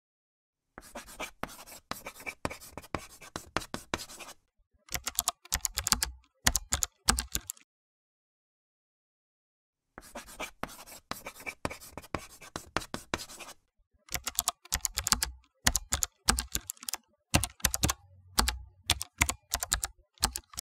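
Scratchy pen-writing sound for about three seconds, then computer keyboard typing in separate sharp keystrokes; after a short silence the pair comes again, writing and then a longer run of typing.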